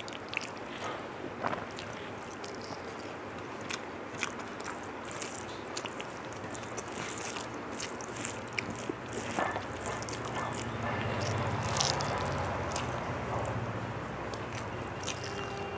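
A person eating rice and curry, close to the microphone: chewing, with scattered small wet clicks and smacks over a steady background hiss. A low rumble swells in the background in the second half.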